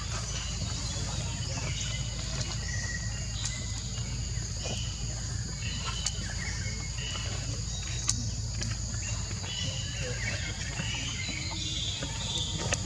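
Outdoor ambience: a steady high insect drone with short bird chirps now and then, over a low background rumble, and a few light clicks.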